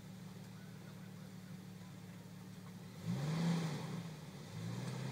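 Jeep Wrangler engine idling, then revving up briefly about three seconds in as it starts crawling over the rocks. It settles into a steady, slightly higher run near the end.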